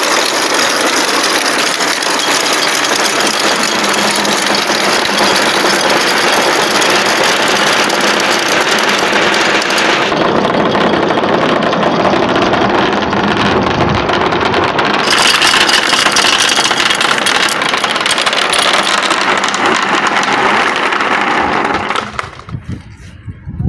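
A mass of marbles rolling and clattering together down a marble-run track: a dense, continuous rattle that thins out and stops about 22 seconds in, leaving a few separate clicks.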